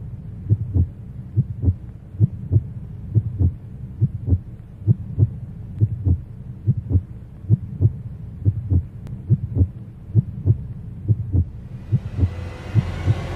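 Heartbeat sound effect: paired low thumps, lub-dub, a little more than once a second, over a steady low drone. Near the end a rising wash of sound swells in.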